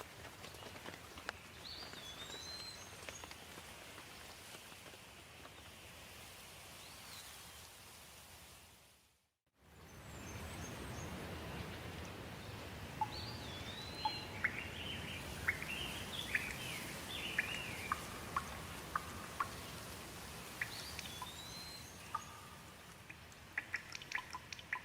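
Steady rain hiss with birds singing: repeated whistled phrases that rise and fall, and a run of quick chirps in the middle stretch. About nine seconds in, the sound fades to silence for a moment and fades back in; near the end, a quick patter of drips.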